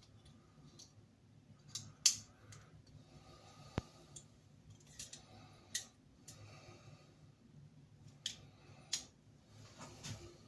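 Irregular sharp clicks and small metallic snaps from a folding Splitman multi-tool as a stiff implement is worked open and clicks into its lock, the loudest about two seconds in.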